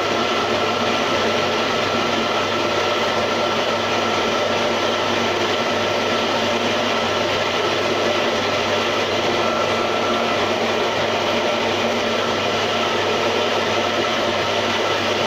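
Homemade electric-motor tofu straining machine running steadily, its motor swinging the sieve to press soy milk out of the pulp: an even mechanical hum with a constant high whine.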